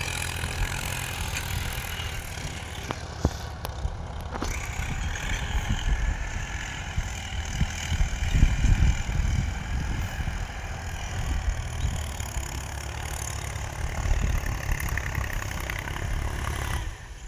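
Tractor engines running steadily as they plough the fields, a low drone with a couple of short clicks a few seconds in.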